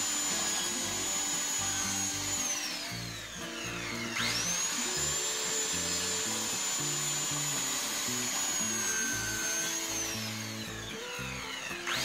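Electric circular saw cutting plywood: it runs at full speed with a high whine, spins down about two seconds in, starts up again at about four seconds and runs steadily, then spins down again near the end. Background music plays underneath.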